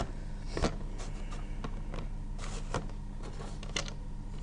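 Handling noises: a few scattered light clicks and taps, with the clearest about half a second in, near the middle and near the end, over a steady low hum.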